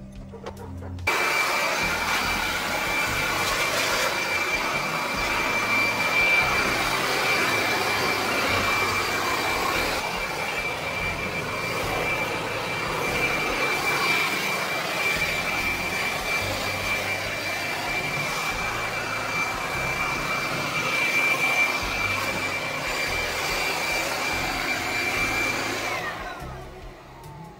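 Corded electric leaf blower running with a steady high whine. It switches on suddenly about a second in and is switched off near the end, its motor winding down with a falling whine.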